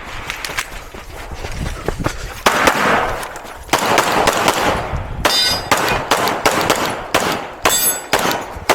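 A Glock 34 9mm pistol fires rapid strings of shots with short pauses between them. Twice, steel targets ring out as they are hit.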